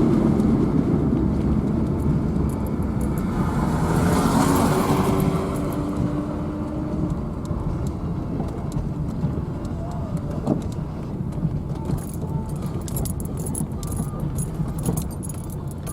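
Car driving, with a steady low road rumble that slowly fades. A broad rush of noise swells about four to five seconds in, and small scattered clicks come in the second half.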